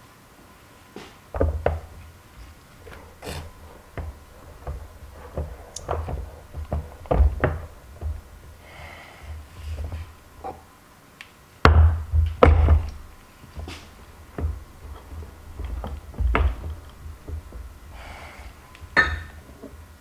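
Irregular metal knocks and clunks as a hand injector and an aluminium soft-plastic bait mold clamped in a jig are handled and the injector is seated on the mold, the loudest pair of knocks about twelve seconds in.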